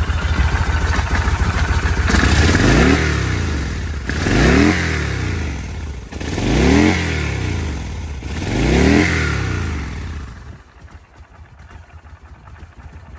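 1996 Kawasaki Vulcan 1500 Classic's stock water-cooled V-twin idling, then revved four times, about two seconds apart, each rev rising and falling in pitch; the engine is in good running order. The sound drops away sharply about ten seconds in.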